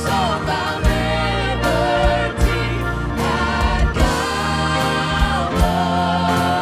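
Live worship song: a woman singing lead with other singers joining in, backed by a band.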